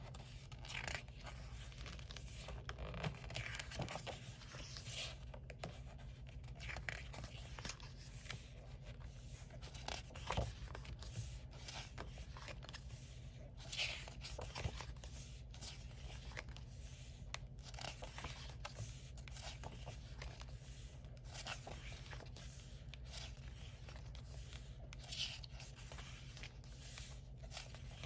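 Pages of a hardcover sticker book being handled and turned: soft paper rustling, with a brief swish of a page flip every few seconds.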